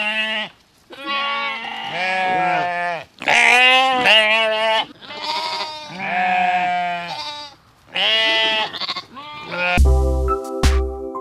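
Repeated sheep-like bleats, about eight long quavering calls with short gaps between them. Near the end, music with a steady thudding beat comes in.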